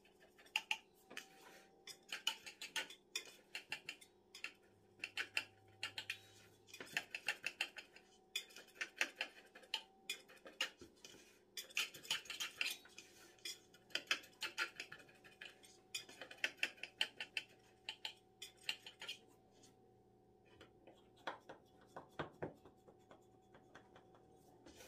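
Kitchen knife cutting through a stack of rolled baklava dough in a round steel tray, the blade clicking and scraping against the tray's metal in quick runs of strokes with short pauses. The strokes thin out to a few scattered ones near the end.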